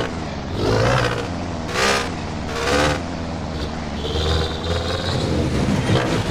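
Sarao jeepney's engine revved in about five short bursts through its Lamigo 'ringtone' muffler, each blip giving a tonal exhaust note that rises and falls over a steady low rumble.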